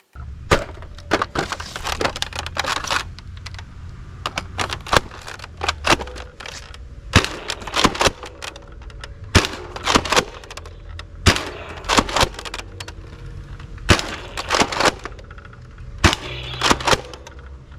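Toy M16 rifle firing: sharp, irregular shot sounds about one or two a second, over a low steady hum.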